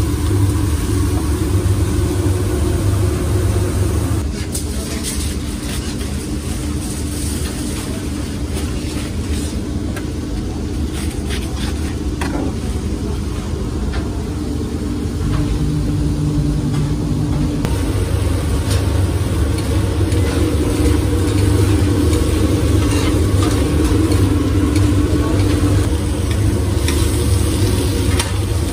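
Food sizzling on a flat-top griddle over a steady low rumble, with scattered clicks and knocks of kitchen work.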